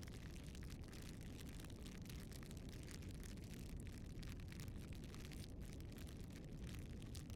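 Wood fire crackling faintly: irregular small snaps and pops over a low steady rush.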